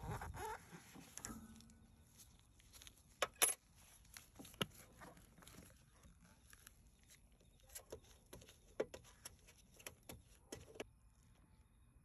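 Quiet, scattered clicks and knocks of hard plastic as gloved hands twist and handle a dishwasher's wash pump in its sump housing, with two louder knocks about three and a half seconds in.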